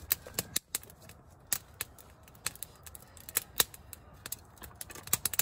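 Campfire of good, dry wood crackling: irregular sharp pops and snaps, some much louder than others, over a faint background hiss.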